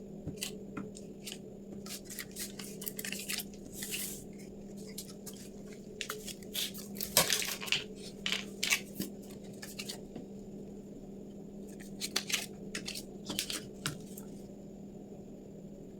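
Small toy kitchen pieces clicking, tapping and clattering as they are handled, in irregular clusters of light knocks, over a steady low hum.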